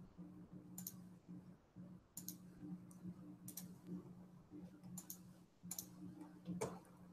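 Faint computer clicks, about half a dozen at irregular intervals a second or so apart, as the stream's controls are worked, over a low steady hum that keeps dropping out.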